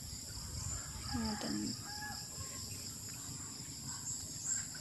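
Crickets and other insects chirping in a steady, high, pulsing trill at dusk, with a chicken giving a short call about a second and a half in.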